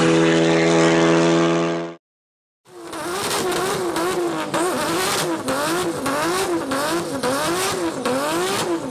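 Tuned Honda Civic FK2 Type R's turbocharged 2.0-litre four-cylinder pulling hard away at full throttle, holding a steady pitch just after a gear change. It cuts off sharply after about two seconds and, after a moment of silence, gives way to a rhythmic warbling sound whose tone rises and falls about one and a half times a second.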